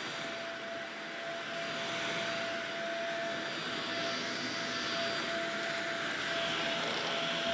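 Shark upright vacuum cleaner running over carpet: a steady rushing noise with a steady whine in it.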